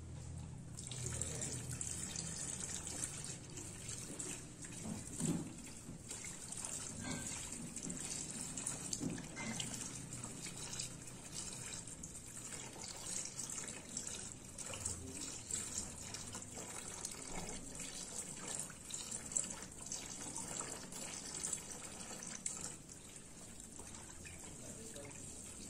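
Alcohol poured in a thin, steady stream from a plastic bottle into a plastic basin of lye-and-oil soap mixture, splashing and trickling into the liquid; the pour starts about a second in. It is the alcohol being added to the lye and oil in homemade liquid soap.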